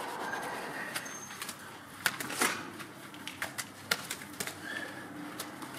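Wet scrubbing of a snow-foamed alloy wheel by hand with a brush and wash mitt, with scattered sharp wet clicks and squelches. Birds chirp a few times in the background.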